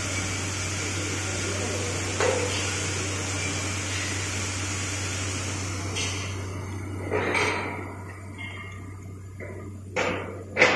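Vibratory bowl feeder running, a steady low hum under a busy rattle of the parts moving in the bowl, which thins out about six seconds in. A few short, louder bursts of sound come near the end.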